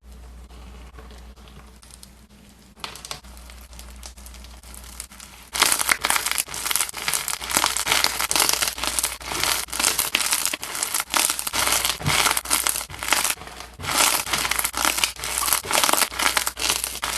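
Slime being squished and pressed by hand. It is faint at first, then from about five and a half seconds in it becomes a loud, dense run of crackles and pops.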